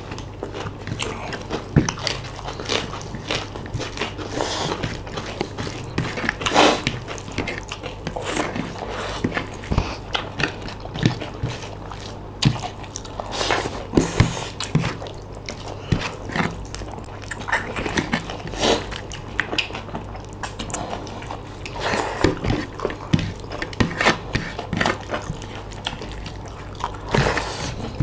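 Close-miked eating by hand: irregular biting, chewing and wet mouth sounds from two people eating curry, rice and raw lettuce leaves, with a steady low hum underneath.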